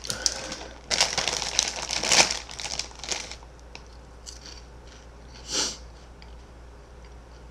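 Foil snack bag of Golden Flake Jalapeño Cheddar cheese puffs crinkling as it is handled, loudest for about two seconds near the start, then a few softer rustles.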